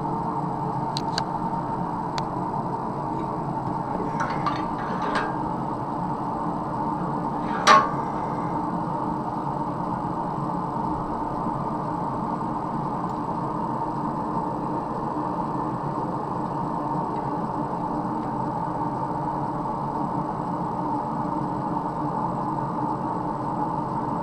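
Blacksmith's forge and its blower running steadily, a constant hum under the shop. A few light metallic clinks come early, and one sharp metal clank rings briefly about eight seconds in.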